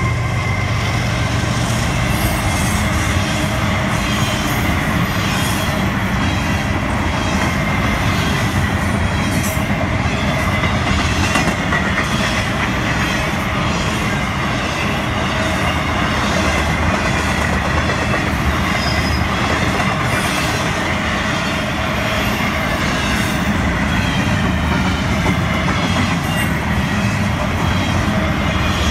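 Florida East Coast Railway intermodal freight cars rolling past close by, a steady loud rumble and rattle of steel wheels on the rails that goes on without a break.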